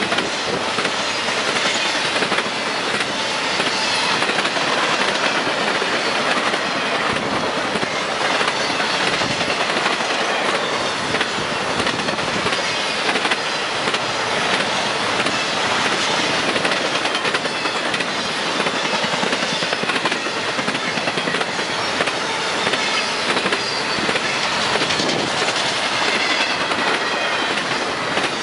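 Empty intermodal well cars of a long freight train rolling past at speed: a steady rattle of wheels on rail, with thin high wheel squeals drifting in pitch now and then.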